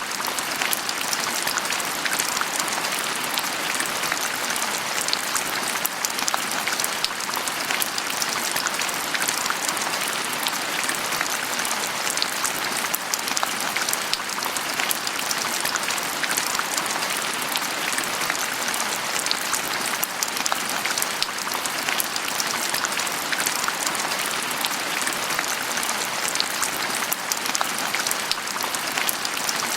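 Steady rain falling, with many fine drop ticks over a constant hiss.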